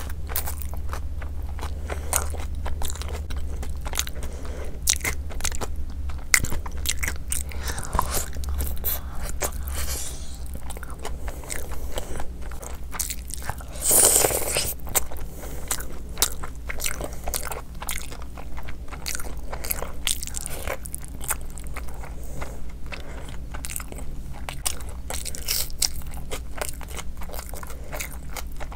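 Close-miked chewing and crunchy biting of fried meat pieces, a steady run of irregular crunches and wet chews, with a louder crunching bite about halfway through.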